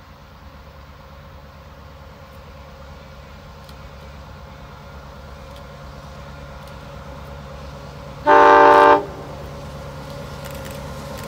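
Low rumble of an approaching train, growing slowly louder, with one short, loud locomotive horn blast of under a second about eight seconds in.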